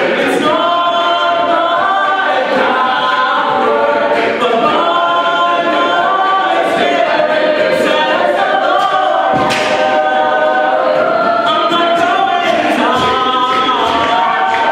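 A mixed-voice a cappella group singing a Christian pop song, with a male lead on a microphone over sustained backing harmonies.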